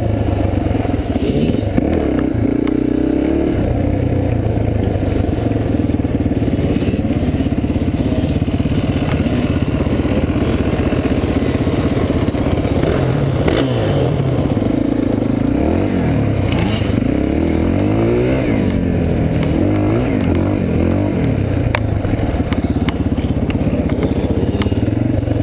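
Yamaha dirt bike's engine running on the helmet-camera bike, steady and low through most of it, with another engine revving up and down several times in the middle.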